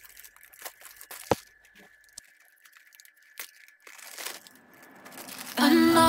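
Faint crinkling, rustling and scattered clicks of plastic zip-top food bags being handled, with one sharper click about a second in. Music fades in near the end.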